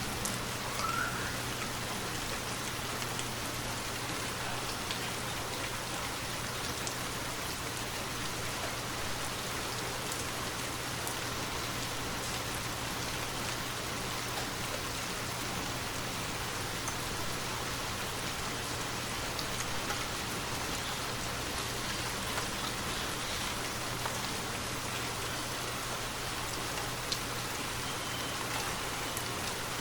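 Steady rainfall, an even hiss of rain with a few single drops ticking out above it now and then.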